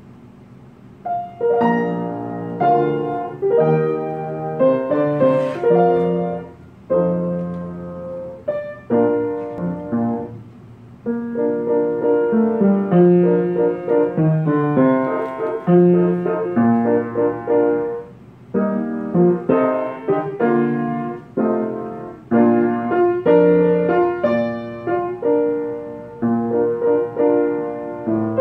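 Piano playing the accompaniment to a tuba/bass trombone solo, with the solo part left out: chordal phrases that begin about a second in, broken by a few short pauses.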